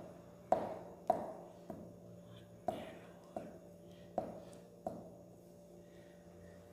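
Glue stick pressed in strokes onto a paper cutout lying on a wooden tabletop: about eight sharp taps, each ringing briefly, spaced about half a second to a second apart, stopping about five seconds in.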